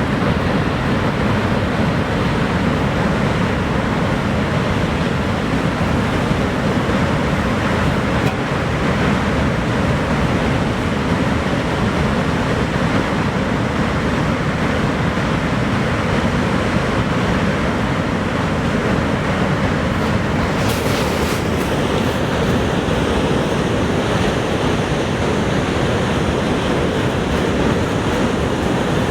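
Niagara Falls' water thundering down in a steady, dense roar with no change in level.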